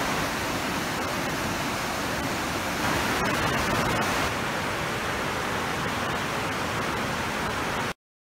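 Whitewater river rapids rushing over boulders: a steady wash of water noise that cuts off abruptly near the end.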